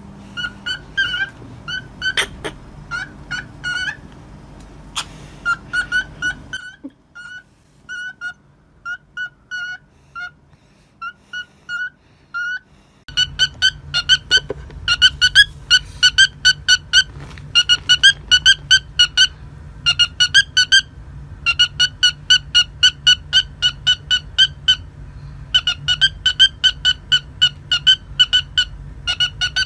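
Cockatiel whistling short, evenly pitched notes. About 13 seconds in it switches to fast runs of identical beeps, several a second, in imitation of an electronic beep, over a low steady hum.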